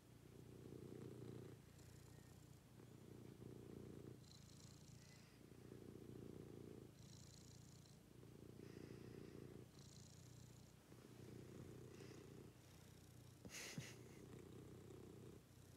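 Domestic cat purring contentedly while being stroked, a faint low purr that swells and fades with each breath every two to three seconds. A brief tap is heard near the end.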